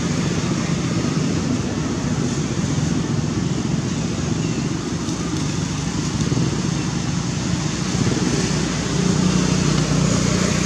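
Steady background rumble and hiss, like road traffic running nearby, a little louder near the end.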